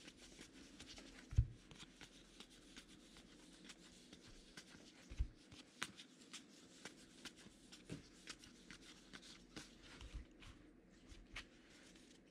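Baseball trading cards being handled and flipped through one by one: faint quick slides and ticks of card stock, with a few soft thumps.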